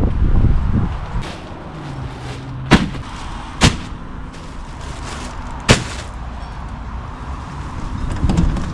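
Four sharp cracks, irregularly spaced: one a little under 3 seconds in, another about a second later, and a last one near the 6-second mark. They sound over a steady low rumble.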